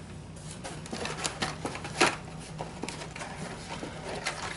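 Blister-packed Hot Wheels cars being handled and set down on a table: scattered plastic clicks and taps, the loudest about two seconds in.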